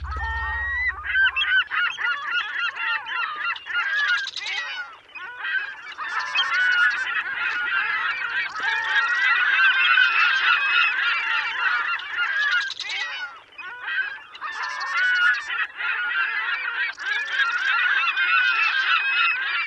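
A large flock of birds calling, many overlapping calls at once, with a few short lulls.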